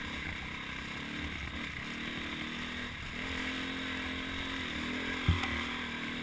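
Dirt bike engine running along a trail, heard from a helmet-mounted camera, its note stepping up slightly about three seconds in and then holding. A single sharp thump a little past five seconds in.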